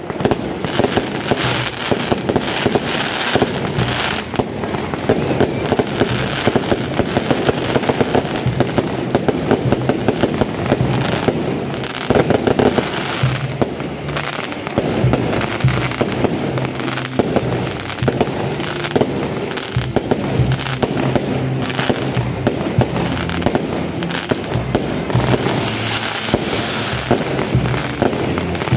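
Fireworks crackling and popping in a dense, unbroken string of sharp reports, with music playing underneath.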